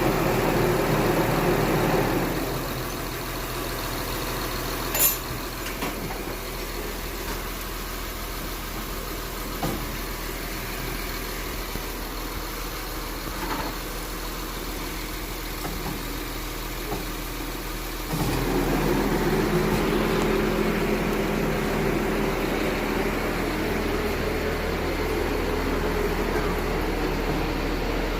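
Honda Accord 3.0 V6 engine idling with a steady hum. It is louder for the first two seconds, drops back, then rises again about two-thirds of the way through. A single sharp click comes about five seconds in.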